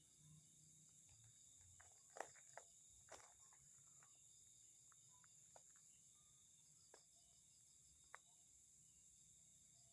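Faint, steady night chorus of crickets and other insects, a high continuous trilling, with a few short clicks and taps scattered over it, the loudest a little over two seconds in.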